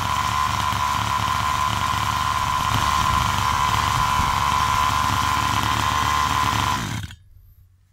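Freshly rebuilt 29cc two-stroke engine of a 1/5-scale HPI Baja 5T, fitted with a box test exhaust, running steadily at an even speed on its first tank with the high-end needle set a little rich for break-in. It sounds very happy, a sign the rebuild is sound, then cuts off suddenly about seven seconds in.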